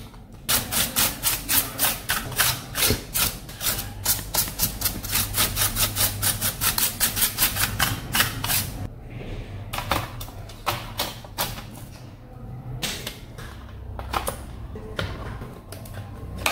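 Rapid, regular clicking, about five clicks a second, as screws are driven back into the laptop with a small screwdriver. After about 9 s it gives way to fewer, scattered clicks and knocks as the bottom cover is handled.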